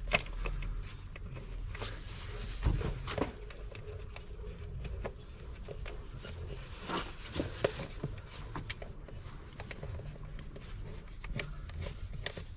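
Scattered light clicks and knocks of gloved hands handling a plastic engine air filter housing and intake duct as it is fitted back together. The sharpest knocks come near the start, about three seconds in and about seven seconds in.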